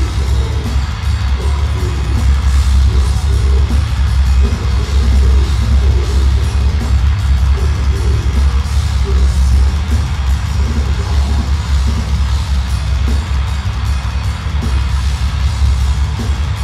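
Death metal band playing live: distorted electric guitar, bass and drums in a loud, dense, continuous wall of sound, with death-metal vocals into the microphone.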